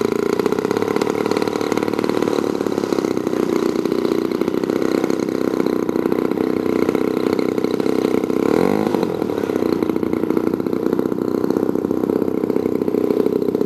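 Gasoline engine of a 1/3-scale RC Aeronca Champ model plane running steadily, with a brief dip and waver in pitch about eight or nine seconds in.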